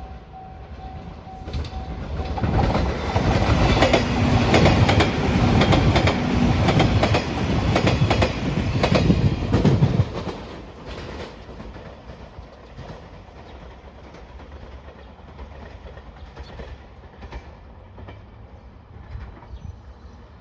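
Electric train passing over a level crossing, its wheels clicking rapidly over the rail joints. It is loud for about eight seconds, then drops to a quieter rumble as it moves away. A level-crossing alarm bell rings at the start.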